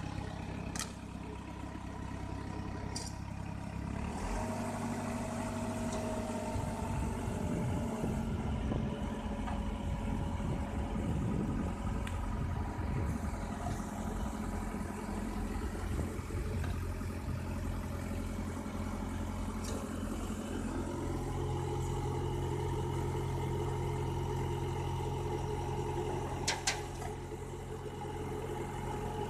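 Engine of a truck-mounted crane running steadily, its speed stepping up about four seconds in and again about twenty seconds later as the crane is worked from its control levers. A few short sharp clicks, the loudest near the end.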